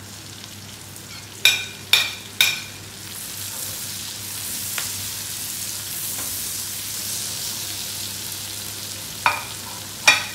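Chopped onions frying in butter in a steel wok with browned garlic and pork, a steady sizzle that grows louder about three seconds in. A metal spatula clanks against the wok three times about a second and a half in and twice near the end as the onions are stirred.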